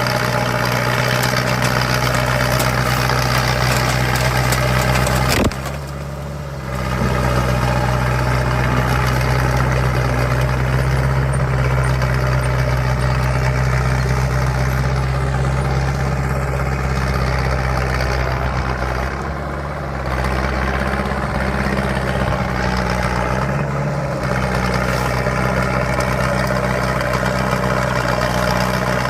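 Bulldozer's diesel engine running steadily under throttle. It eases off briefly a few times, with a sharp click just before the first drop.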